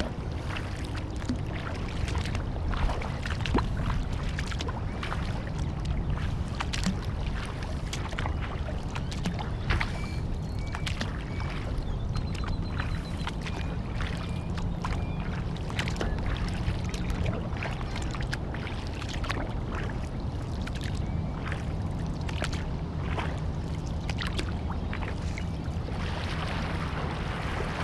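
Water splashing and lapping around a kayak on a lake, with irregular small splashes over a steady low rumble.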